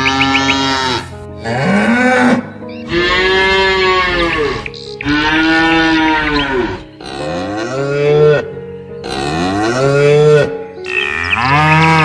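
Cow mooing repeatedly: a run of about seven moos, each one to two seconds long, rising then falling in pitch.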